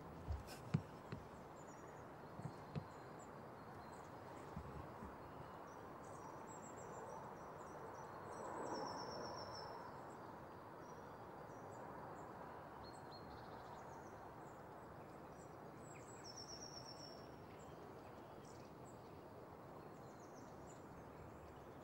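Faint outdoor ambience: a steady background hiss with small high chirps of distant birds scattered through, some falling in pitch. A few soft clicks sound in the first few seconds.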